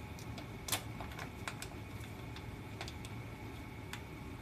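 Light, irregular plastic clicks and taps from a plastic food tub of minced chicken being handled, the loudest under a second in, over a steady low hum.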